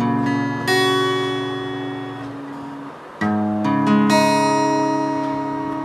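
Background music on acoustic guitar: a few chords, each struck and left to ring and slowly fade, with new chords coming in about a second in and again after about three and four seconds.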